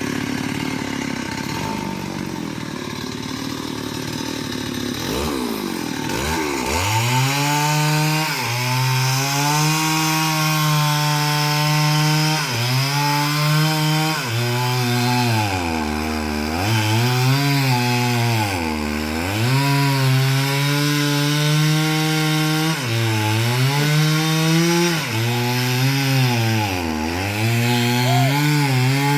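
Two-stroke chainsaw cutting a young coconut palm trunk. A rushing noise gives way, about six seconds in, to the saw's high engine note, which drops in pitch again and again as the chain bogs in the cut, then picks back up.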